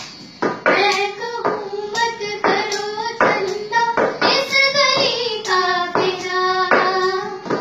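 A voice sings a melody over a cup-song rhythm of sharp taps and claps, a plastic cup struck and slapped on a table with hand claps in between, about two strikes a second.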